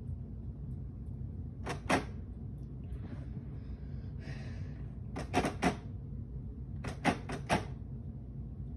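Sharp clicks or taps in small quick groups: two about two seconds in, four about five seconds in, and three about seven seconds in, with brief soft rustling between them.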